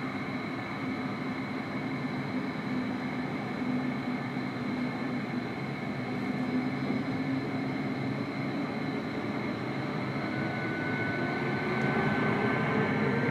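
Jet aircraft engines running with a steady whine over a low rumble, growing a little louder toward the end, when a further higher whine comes in.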